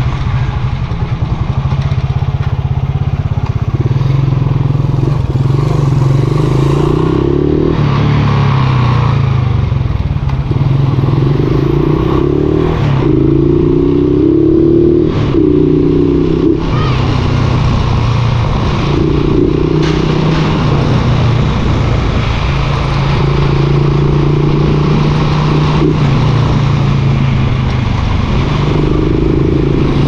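Honda TMX 155's single-cylinder four-stroke engine running under way through a Takasago stock-type muffler, its note rising and falling with throttle and gear changes.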